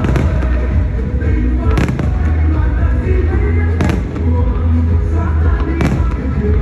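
Fireworks going off in sharp bangs, about one every two seconds, over loud music with a heavy, steady bass.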